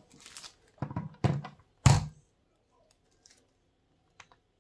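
A few thuds and knocks of objects being set down or handled on a hard stone kitchen countertop, the loudest about two seconds in, followed by a couple of faint clicks near the end.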